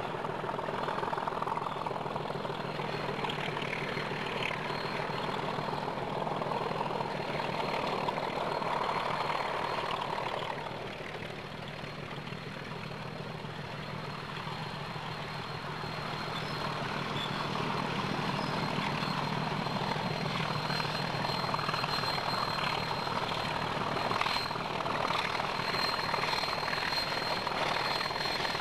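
Diesel locomotives working hard up a steep 1:40 grade, their engines running with a steady low drone. It fades a little for a few seconds near the middle, then grows louder again as the train draws nearer.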